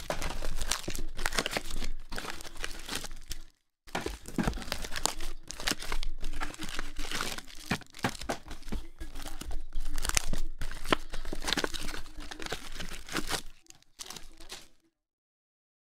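Plastic and foil wrapping on trading card blaster boxes crinkling and tearing as the boxes are unwrapped and opened, a busy crackle of quick rustles that drops out briefly twice, once a few seconds in and once near the end.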